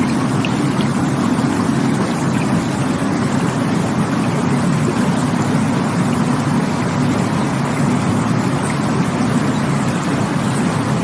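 Rushing water running steadily, an even rush with a strong low rumble and no breaks.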